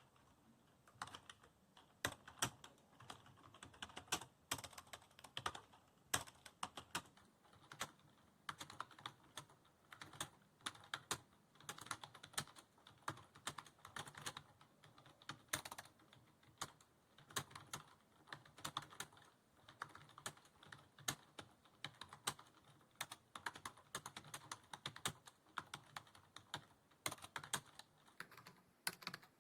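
Fast typing on a computer keyboard: a continuous run of quick key clicks with brief pauses between bursts, during a timed typing-speed test.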